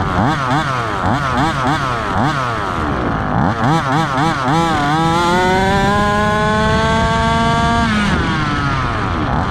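HPI Baja 5B 1/5-scale RC buggy's stock two-stroke petrol engine, revved in short rising and falling bursts. About five seconds in it is held at full throttle for about three seconds, its pitch climbing steadily as the buggy runs up to top speed. The throttle is cut sharply near the end, followed by more short revs.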